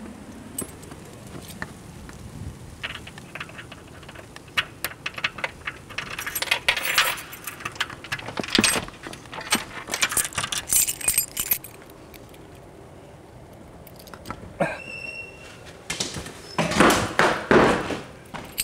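A bunch of keys jangling and clinking in repeated bursts. A short, steady high-pitched tone sounds about two-thirds of the way through.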